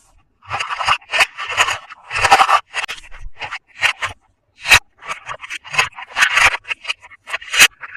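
Toy packaging being handled and opened by hand: irregular scraping and rubbing strokes, with a couple of sharp clicks partway through and near the end.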